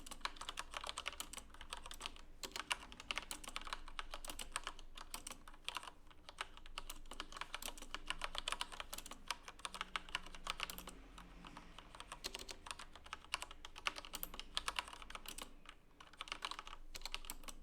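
Fast typing on a Corsair K63 mechanical keyboard with Cherry MX Red linear switches: dense runs of key clacks broken by a few brief pauses.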